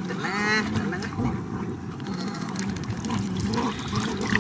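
Baby macaque giving a short, high, squealing distress cry about half a second in as it is held toward the water, which it is afraid of, over a low wavering drone.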